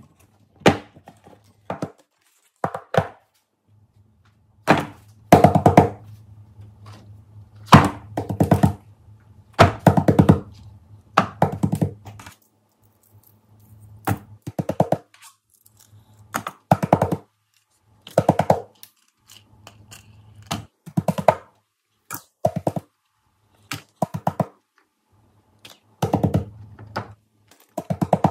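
Silicone pop-it fidget toys and other fidget toys being set down and piled onto each other, giving irregular clusters of thuds and taps, some clusters made of quick rattling strokes, with a faint low hum in between.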